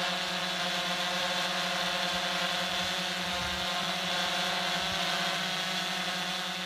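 DJI Phantom 3 Standard quadcopter hovering: a steady propeller hum with a high motor whine, fading out near the end.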